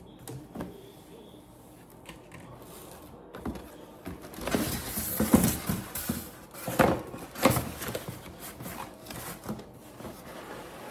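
Unboxing handling noise: rustling of packaging and clicks and knocks of plastic vacuum parts being moved about, with a busy, louder stretch in the middle.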